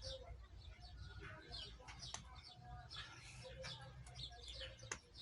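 Faint chirping of small birds, many short quick calls, with a few sharp clicks, one about two seconds in and one near the end.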